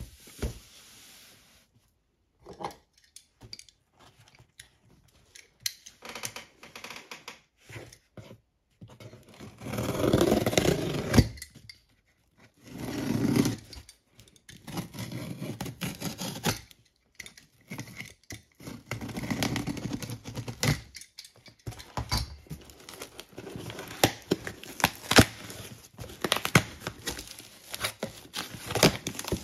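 Packing tape on a cardboard box being slit and torn open, with several longer tearing stretches among scattered clicks, scrapes and knocks of cardboard as the flaps are worked loose.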